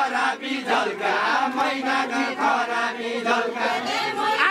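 Men's voices singing a Deuda folk song together, a chanted, repeating melody that runs without a break.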